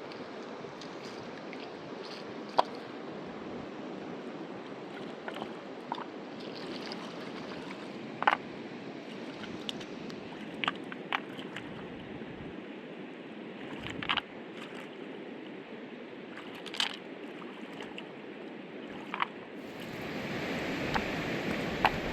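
Mountain river rushing steadily, with scattered sharp clicks and knocks of something being handled close by; the rush grows louder near the end.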